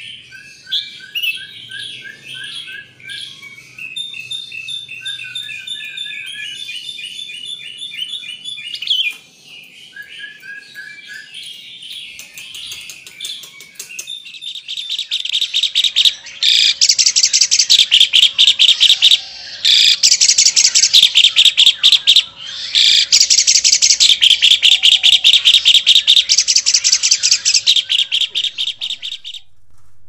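An albino sooty-headed bulbul (kutilang) singing varied warbling phrases, then, after about fourteen seconds, an albino jalak (myna) giving loud, rapid, harsh chattering song in long repeated phrases with short breaks.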